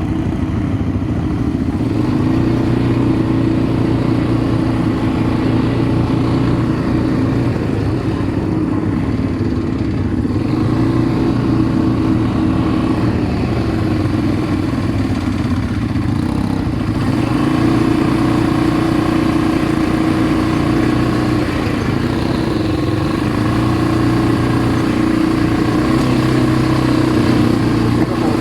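An ATV engine running steadily while riding, its pitch easing off and picking up again a few times with the throttle.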